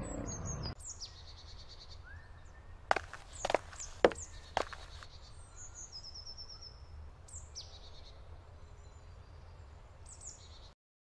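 Small birds chirping and singing in woodland, with four sharp knocks about half a second apart near the middle. The sound cuts off shortly before the end.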